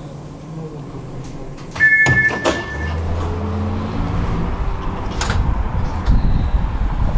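Tram doors opening at a stop: a steady beep about two seconds in, clunks as the doors unlock, then the door motor whirring as they slide open, with a single clack a few seconds later. Wind on the microphone comes in near the end.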